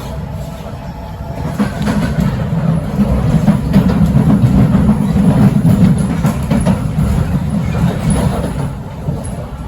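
Kawasaki-CRRC C151A metro train heard from inside the carriage while running at speed: a low rumble with rattling and clicks from the wheels on the track. It swells after about a second and a half, is loudest in the middle, and eases off near the end.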